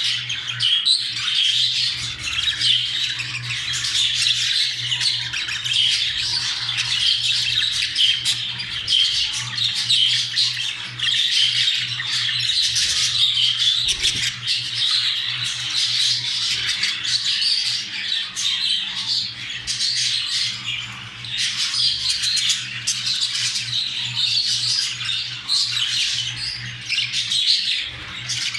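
Budgerigars' continuous warbling chatter, the kind a male budgie keeps up during courtship and mating, over a steady low hum.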